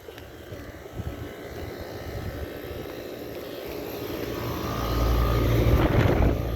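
Outdoor air-conditioner condensing unit running: fan rush with a low compressor hum that grows louder over the last couple of seconds.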